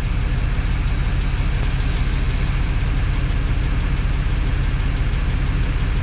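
An engine idling steadily with a low, even rumble. A faint hiss of air fades away over the first few seconds while an inflator chuck is held on the valve stem of a truck tire.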